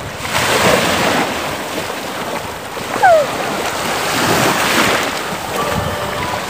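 Sea waves washing in the shallows with wind buffeting the microphone, and water splashing as people wade and bathe. A brief high squeal falls in pitch about three seconds in.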